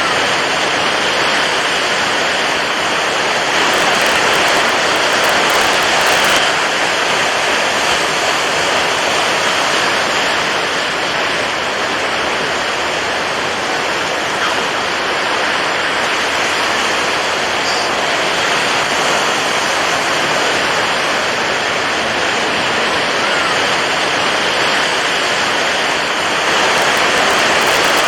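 Water waves in a steady, unbroken rush, swelling a little a few seconds in and again near the end.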